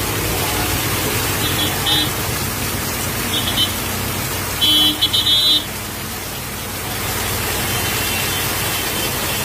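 Heavy rain falling steadily on a street, with a vehicle horn beeping in short high bursts, the loudest about five seconds in.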